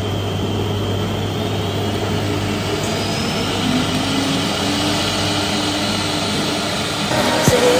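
Two-head CNC router running steadily while machining wooden cutting boards, a constant mechanical hum and noise from the spindles and machine.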